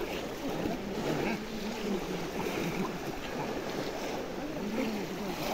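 A crowd of people wading in a shallow pond, with many voices chattering at a distance over the steady slosh and splash of water.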